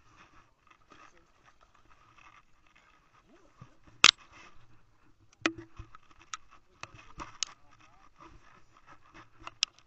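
Footsteps and knocks on a bass boat's deck, with a sharp click about four seconds in, then a string of irregular knocks and clicks.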